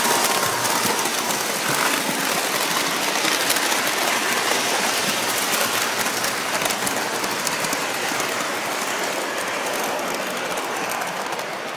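Model train running along its track, heard from a phone riding on the train: a steady rushing rattle of wheels and motor with fine rapid clicks.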